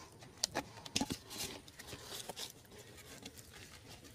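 Faint, irregular crackles and ticks from a small charcoal and coconut-shell fire being brought to embers in a brick pit.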